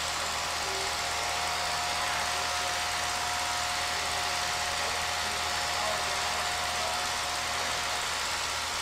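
Steady mechanical running noise with hiss, a low hum and a faint steady whine.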